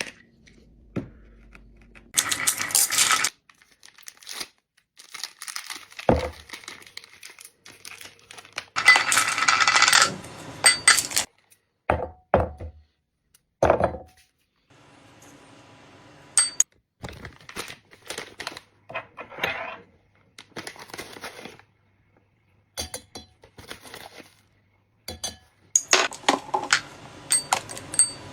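Glassware and kitchen utensils clinking and clattering in a series of short, separate knocks, with a few denser bursts of rattling lasting about a second each, as a drink is assembled.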